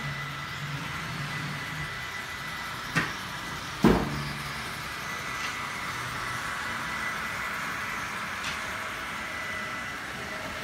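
H0 model trains running on a layout, a steady running hum with faint high tones, broken twice by sharp clicks about three and four seconds in.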